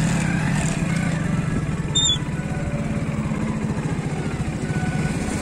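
Motorcycle engine running at low speed as the bike rolls along slowly, a steady low rapid pulse.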